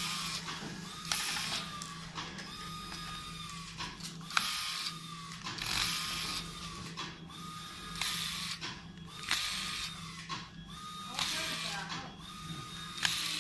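Corded electric screwdriver driving small screws in a plastic instrument case, running in short spurts of a second or so, each a steady motor whine that ends in a ratcheting burst as the clutch slips.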